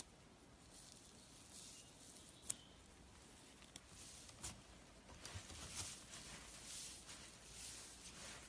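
Slime being handled and squished: faint soft squishing and crackling, more frequent in the second half, with one sharp click about two and a half seconds in.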